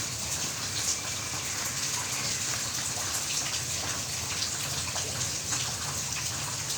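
Heavy rain falling steadily in a garden, a dense hiss with many small drop patters.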